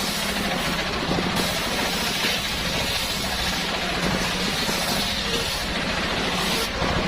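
Engine-driven homemade circular saw running steadily, with a hiss of the blade cutting salam (bay-leaf) wood that eases off briefly about a second and a half in, comes back, and stops near the end.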